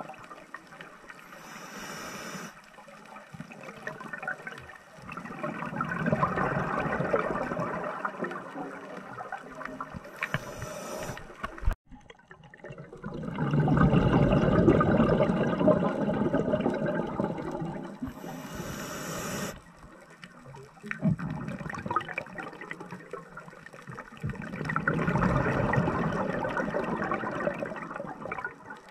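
Scuba diver breathing through a regulator underwater: a short hiss of inhaling about every eight seconds, each followed by several seconds of bubbling exhalation. A single sharp click about halfway through.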